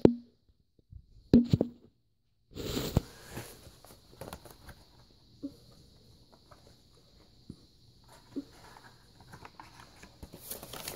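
Handling noise: a couple of sharp knocks as the phone is moved, the loudest a little under 3 seconds in, then scattered light clicks and rustles of a cardboard game box and picture cards being handled.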